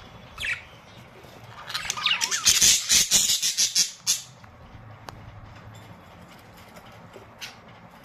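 Budgerigars calling: a short high chirp about half a second in, then a loud burst of rapid, pulsed calls with gliding notes from about two to four seconds, and another short chirp near the end.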